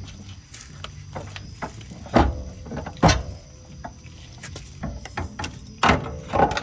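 Scattered knocks and clinks of hand tools and metal car parts while the shift cables are refitted, with louder knocks about two, three and six seconds in.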